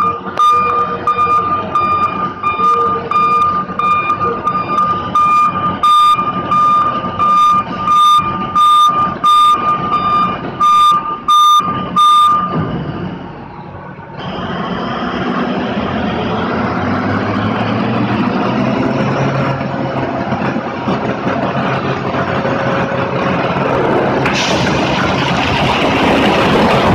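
Mining haul truck backing up with its reversing alarm sounding: a steady high beep with sharp pulses about twice a second over the engine. After a short lull about 13 s in, the truck's raised dump body tips its load of iron ore into the gyratory crusher's hopper, a loud continuous rumble of pouring rock that grows harsher near the end.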